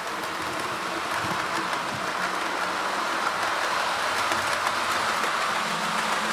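Accurascale model Deltic locomotive running on the layout with its sound turned off, so only the mechanism is heard: a steady whirring hiss of the motor and wheels on the track, with the Pullman coaches rolling behind. It grows gradually louder as the speed is raised.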